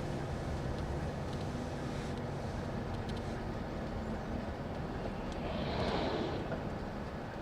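Replacement bus running on the road, heard from inside: a steady low engine rumble and road noise, with a rushing swell about six seconds in.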